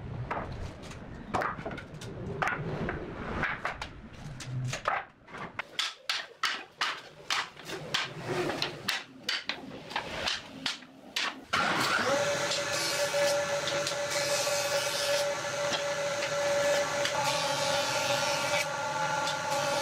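Irregular knocks and taps of hand work on wood. About eleven and a half seconds in, an electric power tool starts and runs steadily with a constant hum.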